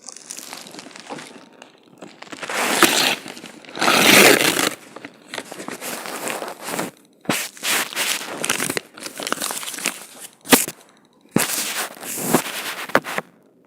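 Plastic packaging crinkling and rustling in irregular bursts as it is handled, with a few sharp snaps.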